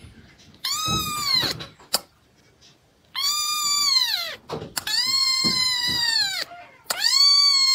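A very young kitten meowing: four long, high-pitched cries, each rising slightly and then falling away at its end.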